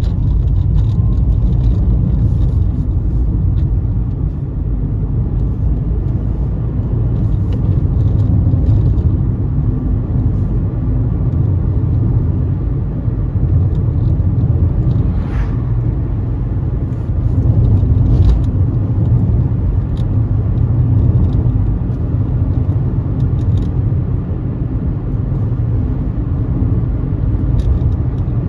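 A car driving steadily on an asphalt country road: a continuous low rumble of tyres and engine. About halfway through it grows briefly louder as an oncoming car passes.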